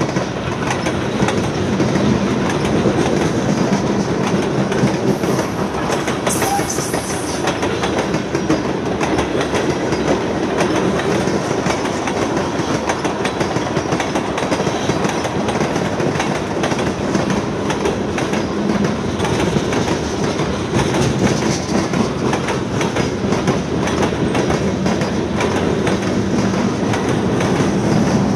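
Freight cars of a passing train, boxcars and tank cars, rolling by with their steel wheels clicking and clattering steadily over the rails.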